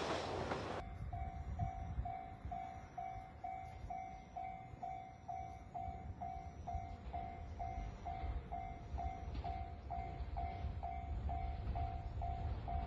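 Japanese railway level-crossing warning bell ringing, about two dings a second, over a low wind rumble. In the first second, the loud noise of a passing train cuts off abruptly.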